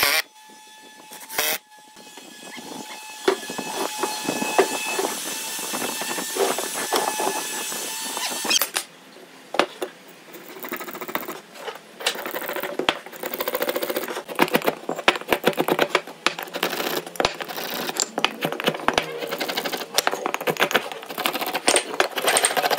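A cordless impact driver drives a screw into pine, running steadily for several seconds and stopping abruptly. Then a marking gauge scratches along pine boards in quick, uneven strokes, with light knocks.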